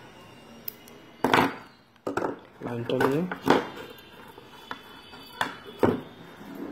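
Clicks and knocks of fishing tackle being handled on a tabletop: a spool of line, a nail clipper and loose metal hooks. A short voice-like sound comes in about three seconds in.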